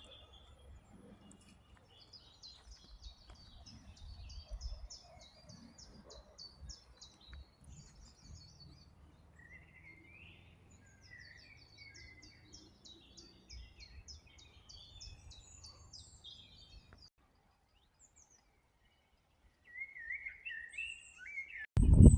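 A small songbird singing two long songs of rapid, high repeated notes, over a faint low outdoor rumble. The sound cuts off suddenly about two thirds of the way in, and after a short silence other bird calls start.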